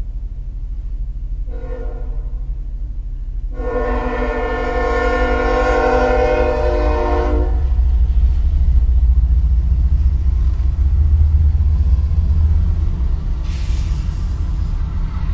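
CSX freight train's lead locomotive, a GE ES44AH, sounding its air horn for the grade crossing: the tail of one blast, a short blast about a second and a half in, then a loud long final blast of about four seconds. Then the deep rumble of the diesel locomotives passing through the crossing, building and peaking past the middle, heard from a car waiting at the crossing.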